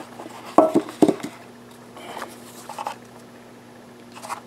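Cardboard box lid being pulled off a long lightsaber box: two short, loud scraping rubs about half a second and a second in, then quieter handling rustles of the box and a brief rustle near the end.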